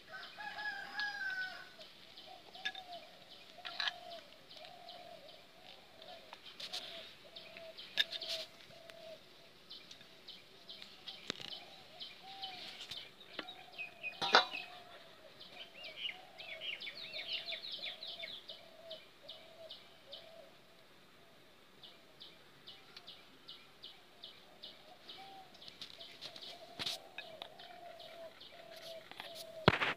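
Chickens clucking softly over and over, with small birds chirping in quick high runs. A few sharp knocks stand out, the loudest about halfway through and near the end.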